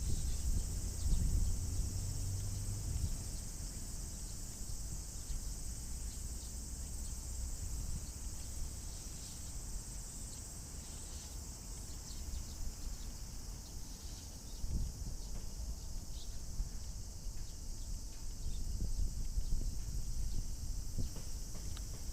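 Steady chorus of cicadas, a continuous high-pitched drone. Under it is a low rumble, strongest in the first few seconds.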